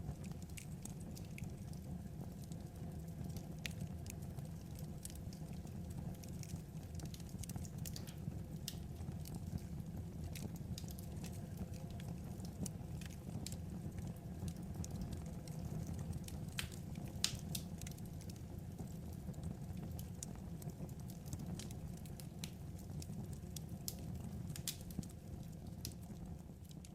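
Wood fire crackling: a steady low rumble of burning logs with sharp, irregular pops and snaps.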